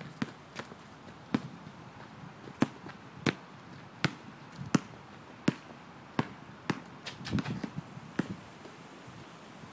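A basketball dribbled on an outdoor asphalt court: about a dozen sharp bounces, roughly two-thirds of a second apart, with a quick flurry of softer hits about seven seconds in. The bouncing stops near the end.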